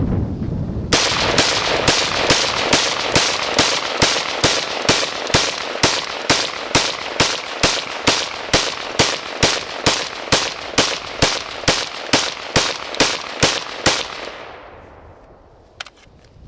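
Rock River Arms PDS gas-piston 5.56 rifle firing a long string of rapid semi-automatic shots, about thirty at a little over two a second, each a sharp crack. The firing stops near the end and the echo trails away.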